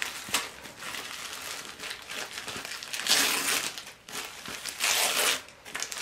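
Wrapping paper being torn and crumpled by hand as a present is unwrapped, in uneven bursts of rustling. The rustling is loudest about three seconds in and again about five seconds in.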